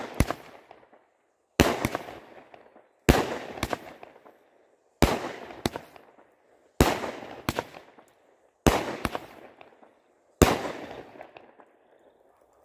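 A small 200-gram Bright Star 'Pretty Little Plane' firework cake firing shot after shot, about one every two seconds. Each shot is a sharp bang with a quick second report and a fading tail of small pops, and the last shot comes a little over ten seconds in.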